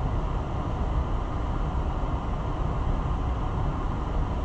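Steady low rushing background noise with no distinct knocks or tools heard, like a running fan or air-conditioning unit.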